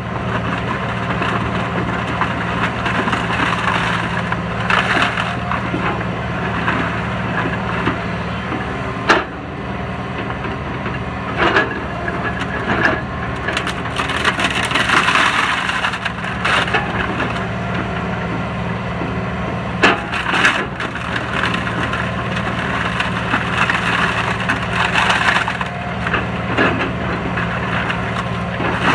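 Excavator grapple crushing wooden pallets: wood cracking, splintering and snapping in many sharp cracks, the loudest about nine seconds in and again around twenty seconds, over the excavator's engine running steadily.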